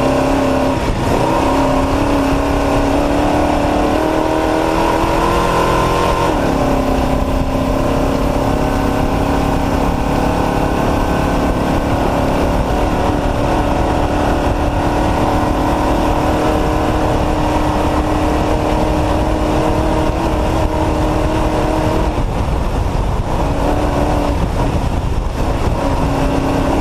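Off-road race truck's engine running hard at speed, loud and unbroken. Its pitch drops suddenly about a second in and again about six seconds in, and shifts a few more times near the end.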